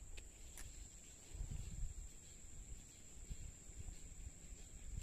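Steady high-pitched insect drone from the forest, held at one pitch throughout, over low rumbling noise, with a faint click or two near the start.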